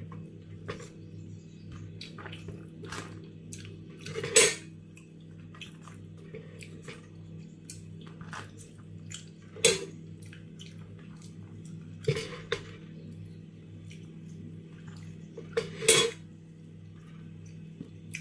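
Serving spoons scraping and knocking against a large metal cooking pot and a plastic tub as cooked jollof rice is scooped out. The scrapes and light clicks are broken by four louder knocks spread through, over a steady low hum.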